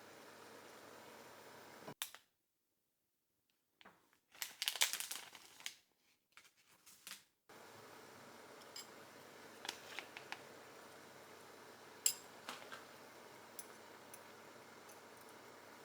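Light clicks and clinks of kitchen utensils and dishes over a low steady hiss: a quick cluster of them, then a few single ticks.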